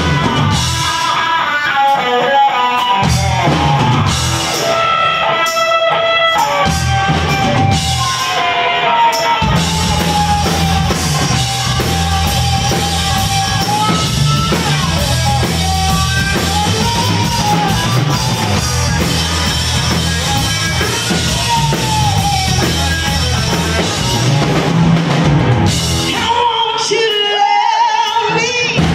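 Live rock band playing electric guitar, bass and drum kit, with a woman singing. The bass and drums come in full about nine seconds in and drop away near the end.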